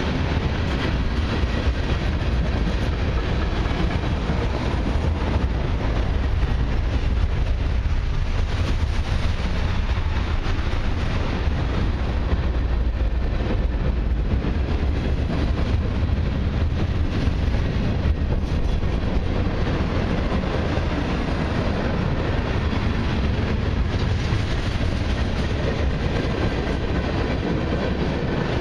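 Freight cars of a long train (tank cars, covered hoppers, gondolas) rolling steadily past: a deep, continuous rumble of steel wheels on the rails.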